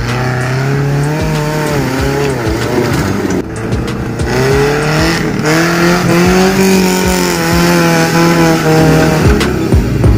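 Engine of a modified off-road 4x4 working hard under load, its pitch rising and falling as it revs, with a brief dip about three and a half seconds in.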